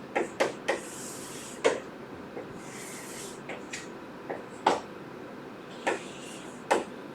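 Writing on paper: two brief scratchy strokes and scattered sharp taps and clicks.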